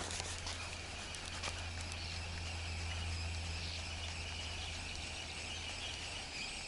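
Insects chirring steadily and continuously, over a low steady hum.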